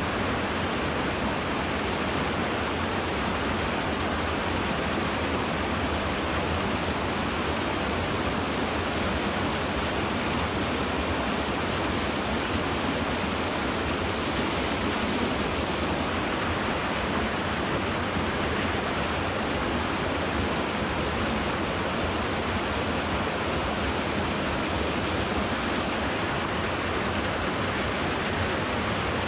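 Steady rush of a mountain stream's flowing water, an even, unbroken sound with no change in level.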